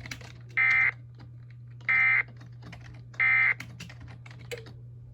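Three short Emergency Alert System end-of-message data bursts, the warbling two-tone digital code sent three times, each about a third of a second long and about 1.3 s apart. They mark the end of the flash flood warning broadcast. Faint clicking and a low hum sit underneath.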